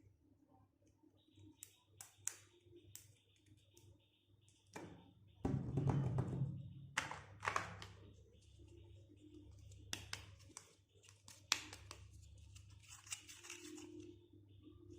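Small plastic toy pieces and their packaging being handled: scattered light clicks and taps, with a louder stretch of crinkling packaging about five seconds in.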